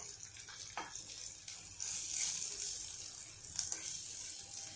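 Chopped coriander and peanut powder sizzling softly in oil in a kadhai while a silicone spatula stirs them, with a few light knocks of the spatula against the pan. The sizzle grows louder about two seconds in.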